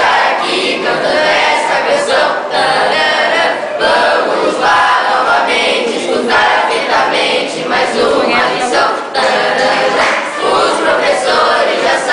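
A group of young voices singing together.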